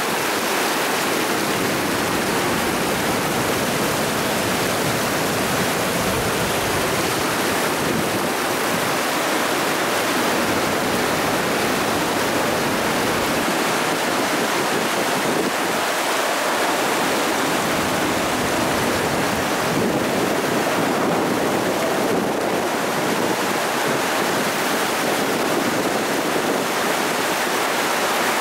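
Flash floodwater rushing past in a fast, churning torrent: a steady, even rush of water that never lets up.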